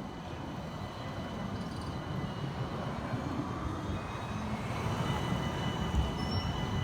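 City tram running on its rails: a low rumble that slowly grows louder, with thin high squealing tones from the wheels that come in more strongly near the end.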